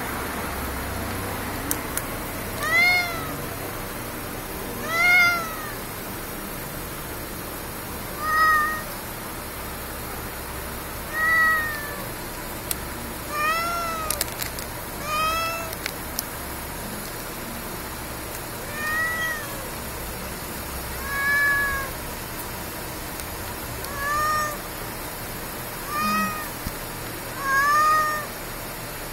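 Stray tabby cat meowing over and over, about eleven short meows spaced a few seconds apart, each rising then falling in pitch. The meows are directed up at a person, as if the cat is asking for something.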